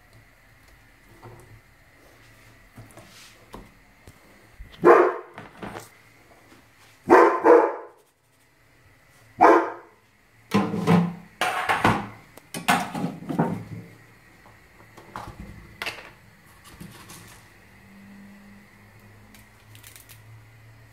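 German Shepherd dog barking: about seven loud barks in short bursts between about five and fourteen seconds in, with quiet gaps between them.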